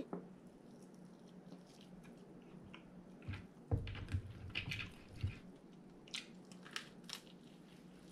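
A person chewing and biting deep-fried quail close to the microphone: soft wet chewing with small crunches and clicks, louder for a couple of seconds around the middle.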